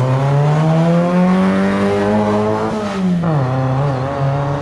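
Vintage race car's engine accelerating hard away from the start line, its pitch climbing steadily. About three seconds in the pitch drops sharply at a gear change, then climbs again and holds.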